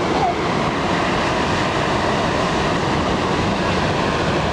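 Steady wind rushing over the microphone, with ocean surf beneath it: one continuous, loud noise with no breaks.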